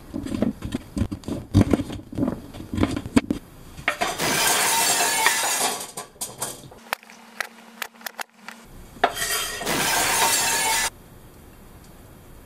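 Kitchen knife chopping sweet potato on a wooden cutting board: a quick run of knocks. Then come two loud rustling, clattering bursts of about two seconds each.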